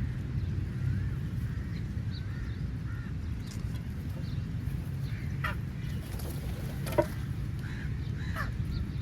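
Crows cawing: several short, harsh calls scattered through, the sharpest about five and a half, seven and eight and a half seconds in, over a steady low rumble.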